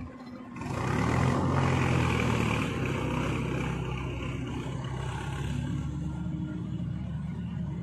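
Diesel tractor engine running under load as it pulls a loaded trolley through mud. The engine comes in loud about half a second in, then slowly fades as the tractor moves away.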